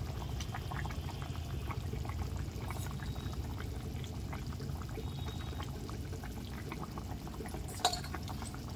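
Curry simmering in a pot on a gas stove: a steady low rush with many small bubbling pops throughout, and a single sharp tap near the end.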